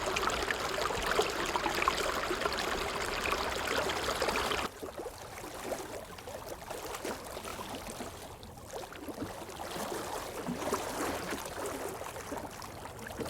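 Rushing, splashing water noise that cuts suddenly to a quieter water sound about five seconds in.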